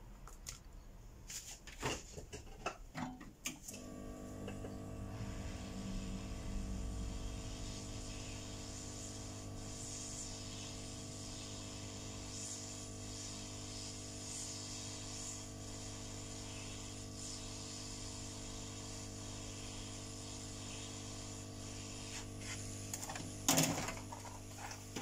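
Handheld heat gun switched on about four seconds in and blowing with a steady motor hum and air hiss, heating the earpiece shield to loosen its adhesive for removal. A few handling knocks come before it and a sharp knock comes near the end.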